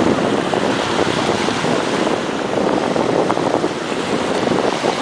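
Sea surf washing onto a sandy beach, with wind buffeting the microphone in a steady rush.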